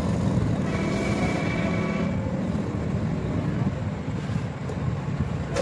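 A steady low mechanical rumble, with a sharp click near the end.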